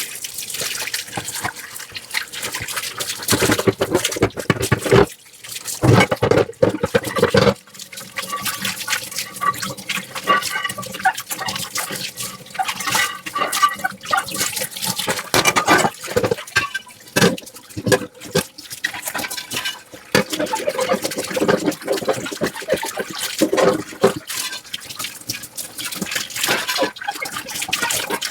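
Dishes being washed by hand at a sink: water running and splashing, with irregular knocks and clinks of dishes and utensils.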